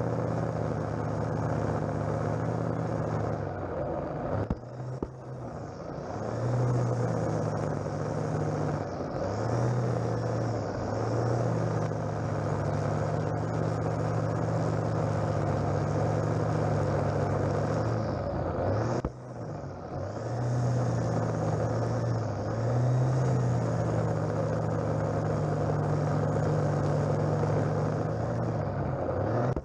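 Petrol strimmer engine running at high throttle while its line cuts a lawn edge along a path. It eases off briefly about four seconds in and again near the middle, then picks back up.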